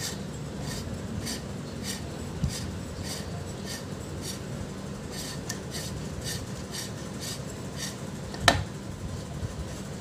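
Short metal-on-metal scraping strokes, about two a second, as a hand tool is worked against a washing-machine gearbox, with one sharp metallic click about 8.5 seconds in.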